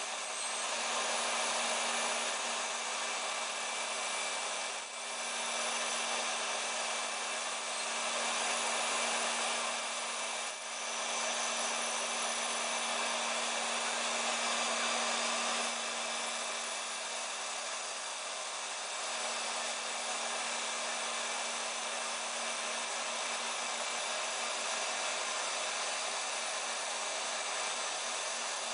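Small CNC router's spindle milling Depron foam while a vacuum hose draws off the chips beside the cutter: a steady whirring hiss over a low hum, dipping briefly twice.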